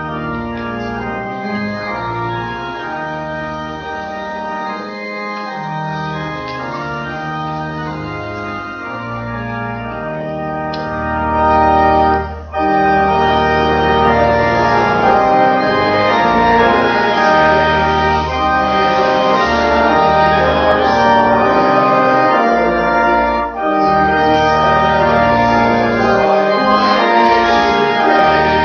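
Church organ playing the recessional hymn in held chords over a sustained pedal bass. After a short break between phrases about twelve seconds in, it comes back louder.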